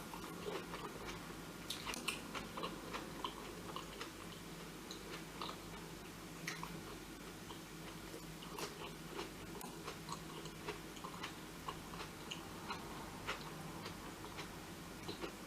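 A person chewing and eating food close to the microphone, with many small, irregular wet mouth clicks and smacks over a faint steady low hum.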